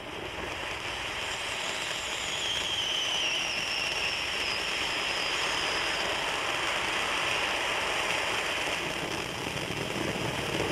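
Ground fountain firework (Emerald Fountain) spraying sparks: a steady rushing hiss that builds over the first couple of seconds and then holds, with a faint whistle falling in pitch between about two and six seconds in.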